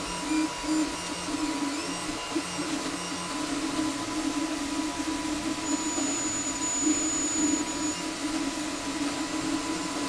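FDM 3D printer running, its stepper motors whirring in shifting tones as the print head moves over the bed. A thin high tone comes in briefly about six seconds in.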